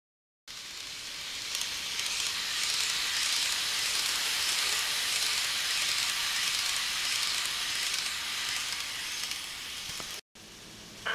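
Kato N-scale E233 model train running past on the track: a steady hissing rush of wheels and motor that starts abruptly about half a second in and cuts out briefly near the end.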